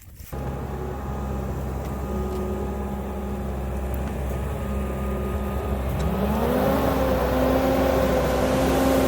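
Diesel engine of compact earthmoving equipment running steadily at low speed, then throttled up about six seconds in, its pitch rising smoothly to a higher steady speed that it holds.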